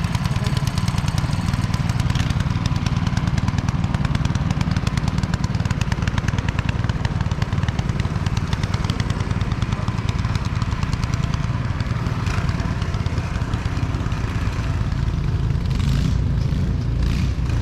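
Small gasoline engine of a snowblower running steadily at a constant speed while clearing snow.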